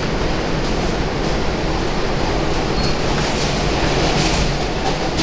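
R160 subway car in motion, heard from inside: a steady rumble of wheels on rail with a few faint clicks over rail joints. A brief high squeak comes near the middle, and the noise brightens a little around four seconds in.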